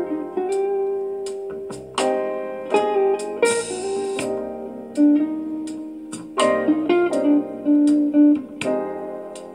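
Instrumental break in a slow love song, with plucked string notes struck and left to ring, played through the G-90S Bluetooth alarm clock's speaker.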